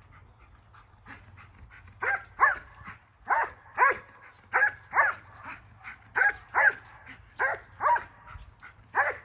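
A dog barking in a steady rhythm in IGP protection work, loud barks mostly coming in pairs about a second apart, starting about two seconds in.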